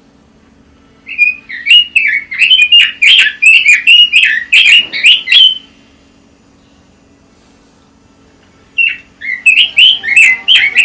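Pekin robin (red-billed leiothrix) singing two phrases of rapid, warbling notes. The first phrase lasts about four seconds; the second begins after a pause of about three seconds, near the end.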